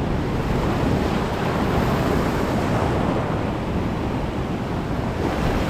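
Ocean surf washing onto the shore in a steady roar, with wind rumbling on the microphone.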